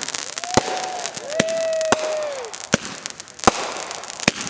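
Consumer fireworks going off: sharp bangs of bursting shells about once a second, with crackling between them. Two drawn-out whistling tones sound in the first half, the second longer and dropping in pitch at its end.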